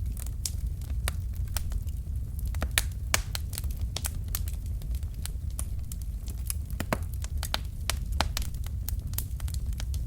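Wood fire in a fireplace: burning logs crackling and popping with many irregular sharp snaps, several a second, over a steady low rumble of the flames.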